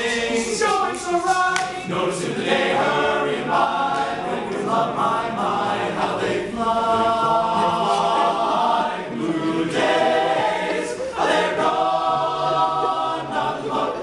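Men's barbershop chorus singing a cappella in close four-part harmony, with two long held chords, one about halfway through and one near the end.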